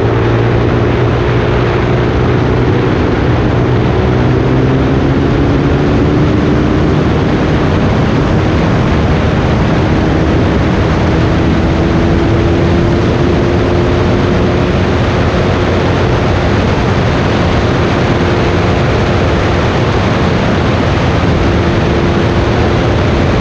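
Honda 100 motorcycle's small single-cylinder four-stroke engine running at a steady cruise, its pitch drifting slightly up and down, under a heavy rush of wind noise on the microphone.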